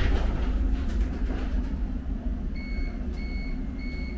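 Subway train door-closing warning: three short beeps at the same pitch, evenly spaced, starting a little past halfway, over a steady low rumble.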